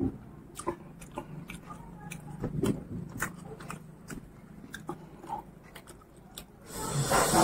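Close-miked mouth sounds of a person eating rice and pork curry by hand: chewing with repeated wet smacks and clicks. Near the end there is a louder, wet hissing sound about a second long.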